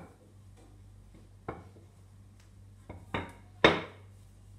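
A handful of sharp knocks and thuds on a tiled kitchen counter as puff pastry is worked on it, the loudest about three and a half seconds in.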